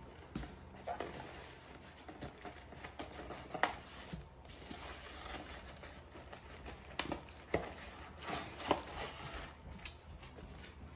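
Plastic bag and kraft paper sleeve crinkling and rustling as a bagged potted plant is worked out of the sleeve, with a few short, sharper crackles.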